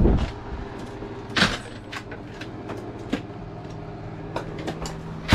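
Metal tool chest drawers being slid open and shut, with a string of clanks and knocks from the drawers and the tools in them, the loudest at the start and about a second and a half in. A steady low hum runs underneath.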